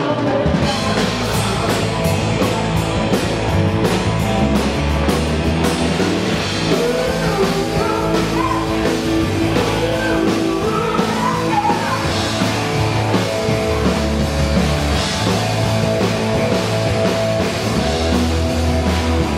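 Live rock band playing: electric guitars, bass guitar and a drum kit with vocals, loud and steady.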